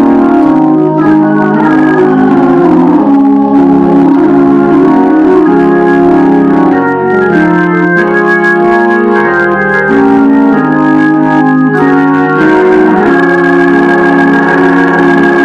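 Two-manual electric console organ played with both hands: loud, sustained chords that change every second or so.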